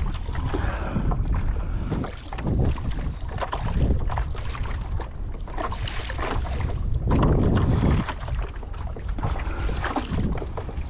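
Wind gusting on the microphone over water washing along the hull of a Hobie Lynx pedal kayak under way on choppy water, loudest in a gust about seven seconds in.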